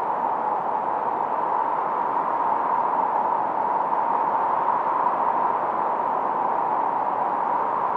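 Filtered noise from a 1972 Minimoog synthesizer: a steady mid-pitched hiss, even and unbroken, with only slight slow swells in level.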